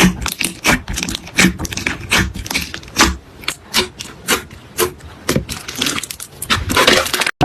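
Slime being worked, giving an irregular series of short sticky pops and crackles, with a longer crackling stretch near the end.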